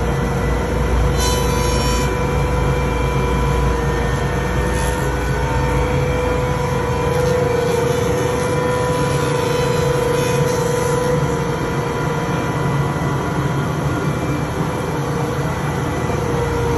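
Laguna PX20 thickness planer running with a steady hum and a held whine while a board feeds through its cutterhead.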